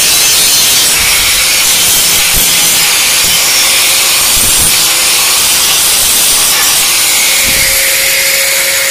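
Angle grinder running with its disc grinding against a steel edge: a loud, steady, harsh grinding hiss with a faint motor whine under it.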